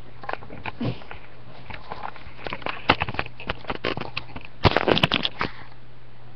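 Handling noise close to the microphone: scattered clicks, knocks and rustles, with a dense cluster of knocks about two-thirds of the way through, over a faint steady low hum.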